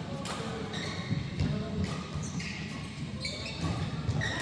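Sports shoes squeaking on an indoor court floor, many short, high squeaks in quick succession, over the thuds of players' footsteps in a large echoing hall.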